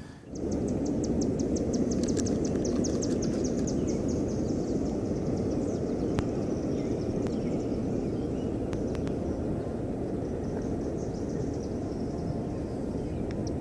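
Steady low outdoor background rumble, with a high, rapid pulsed trill of several pulses a second over it that fades after about five seconds and comes back faintly near the end.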